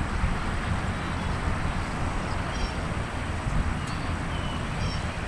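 Steady low outdoor rumble with a few short, high bird chirps.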